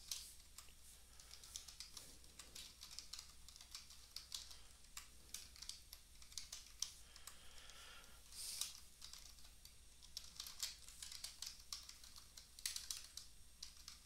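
Faint typing on a computer keyboard, irregular key clicks, over a low steady hum.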